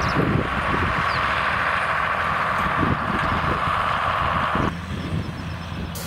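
Small engine on a horse-drawn forecart running steadily to drive a round baler, with occasional knocks from the moving rig. About five seconds in it drops suddenly to a quieter, more distant level.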